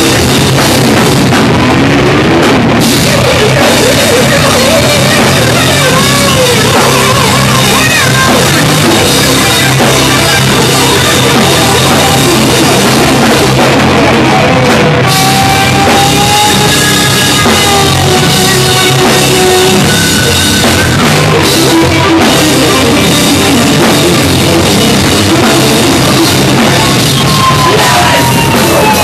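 Hardcore thrash metal band playing live and loud, drum kit and electric guitars.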